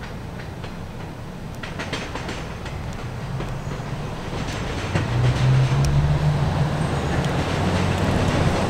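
New York City Subway train approaching, its low rumble and motor hum growing steadily louder, with sharp wheel clicks as it runs through the track switches. The sound gets noticeably louder about five seconds in.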